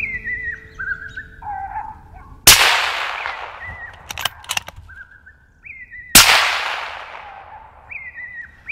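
Two suppressed rifle shots fired at a coyote, about three and a half seconds apart, each a sharp crack with a long echoing tail. Under them an electronic predator caller plays high whining, yelping calls.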